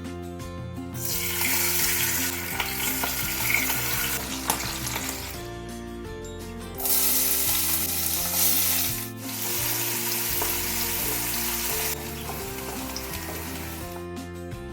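Fish sizzling as it fries in hot oil in a pan, a loud steady hiss in several stretches that start and stop abruptly, over background music with sustained tones.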